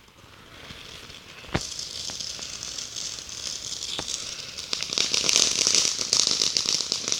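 Consumer firework going off: a sharp pop about a second and a half in, then dense, fast crackling that grows louder toward the end.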